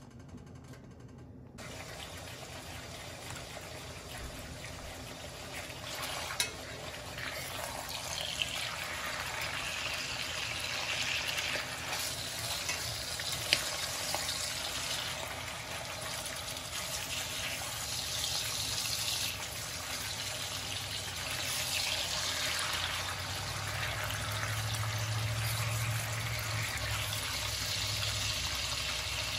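Ham and bologna frying in bacon grease in a cast iron skillet: a steady sizzle that starts suddenly about a second and a half in and grows louder, with a few sharp clicks.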